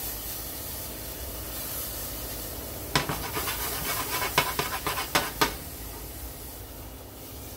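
Minced garlic sizzling in a hot saucepan. From about three seconds in to five and a half, a quick run of scrapes and clatters comes as the pan is shifted on the glass-top electric stove.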